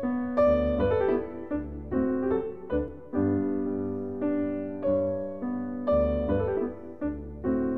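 Background piano music: a melody of struck notes, each sharply started and fading away.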